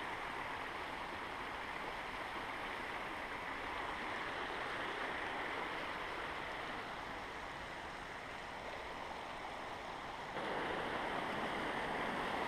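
Steady rush of flowing water, an even hiss-like noise that gets suddenly louder and fuller about ten seconds in.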